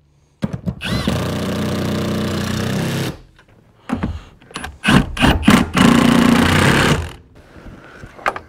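Cordless impact driver running seat-mounting bolts down into the floor of a pickup's cab. It hammers in one steady run of about two and a half seconds, then after a short pause gives several short bursts and a final run of about a second.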